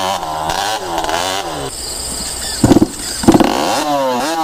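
A motor vehicle's engine being revved hard, its pitch rising and falling again and again. Two short, much louder spells come a little past the middle, and near the end the revs go up and down in quick succession.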